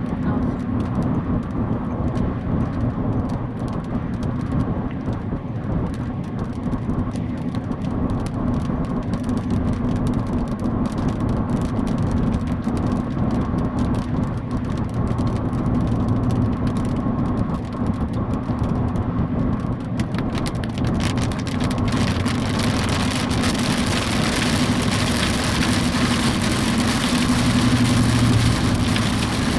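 Steady low vehicle hum under an even hiss of rain; the hiss grows heavier about two-thirds of the way through.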